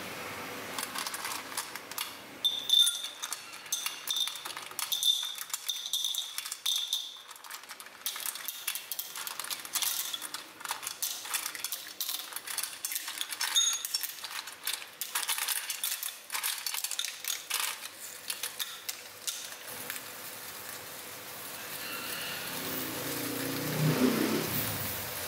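Clams clattering and clinking against each other and a metal bowl as they are tipped into a clay pot and shifted by hand: many quick clicks with an occasional ringing clink. Near the end a hiss swells up and grows louder.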